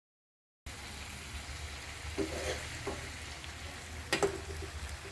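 Food frying in a pan: a steady sizzle that starts suddenly about half a second in, with a few light clicks and clinks.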